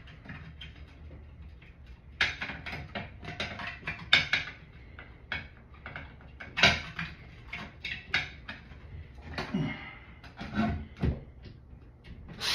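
Irregular clicks, knocks and scrapes of hands working metal parts at a shower valve's trim plate, with a few louder knocks spaced a couple of seconds apart.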